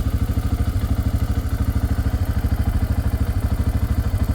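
Four-wheeler (ATV) engine running steadily while riding, with a rapid, even pulsing beat.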